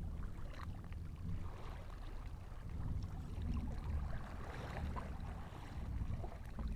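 Creek water sloshing and splashing as someone wades through it, with a low rumble of wind buffeting the microphone.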